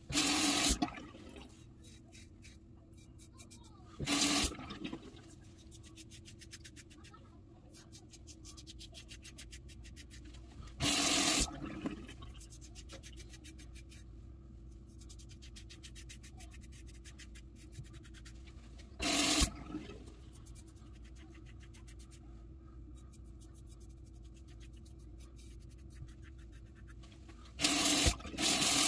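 Double-edge safety razor with a fresh Personna Platinum blade scraping through stubble on a lathered scalp: a quick, fine crackle of hairs being cut. About five short bursts of tap water break in, loudest near the start and again near the end.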